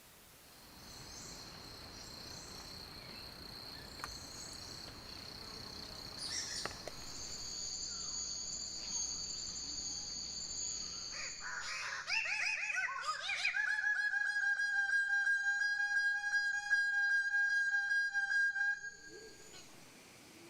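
Forest ambience with a steady high-pitched whine, then, just past halfway, a loud buzzy bird call, rapidly pulsing and rich in overtones, held for about seven seconds before it stops abruptly.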